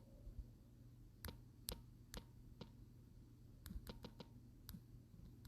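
Faint, irregular light clicks and taps, about a dozen, spaced unevenly, like fingers working a keyboard or screen.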